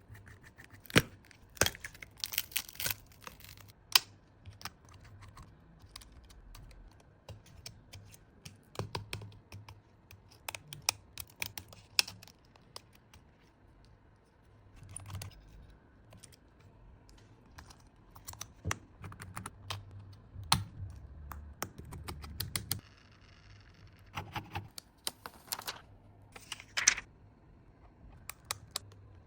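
Repair tools working on an iPhone's cracked back glass, making irregular small sharp clicks, taps and short scrapes, with a faint steady low hum underneath.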